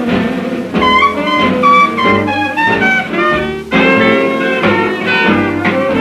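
Mid-1930s swing band playing from a 78 rpm shellac record, horns carrying the melody over a bass line.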